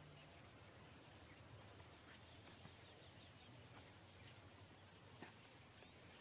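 Near silence: faint outdoor ambience with an insect chirping in a high, even series of pulses that pauses briefly twice.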